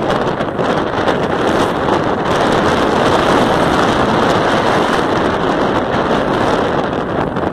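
Steady rush of wind buffeting the microphone of a moving vehicle, mixed with road and tyre noise on a wet road; no distinct engine note stands out.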